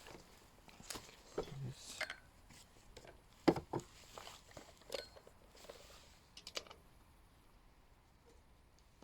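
Irregular clicks and knocks, the loudest about three and a half seconds in, from handling a floor pump and a tubeless mountain-bike wheel while inflating the tire to seat its bead.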